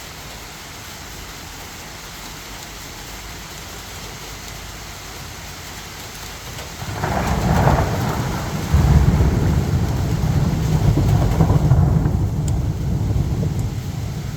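Steady rain hissing, with a long rumble of thunder rolling in about halfway through and going on to near the end.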